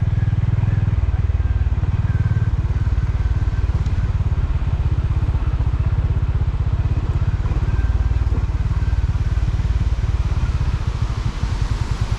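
Motorcycle engine running steadily under way, a fast train of low exhaust pulses; near the end the pulses slow and stand out more distinctly.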